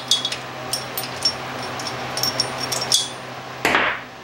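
Light metallic clicks and clinks, about a dozen in irregular succession, as a steel head bolt is started by hand through the cylinder head of a Kohler engine, with a brief scuffing noise about three and a half seconds in.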